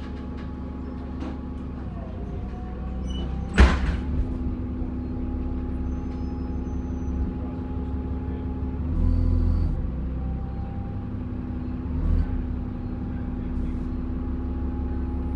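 Dennis Trident double-decker bus engine running, heard on board, with a thin high turbocharger whine above the drone that rises slowly as the bus pulls. A single sharp crack about three and a half seconds in.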